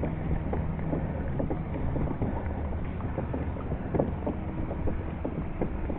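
Wind on the microphone and water moving against a pedal kayak's hull, with scattered small clicks and knocks.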